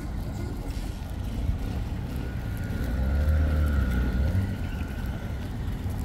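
A motor engine passing by, its low rumble growing louder about halfway through and then fading, with a thin steady whine above it.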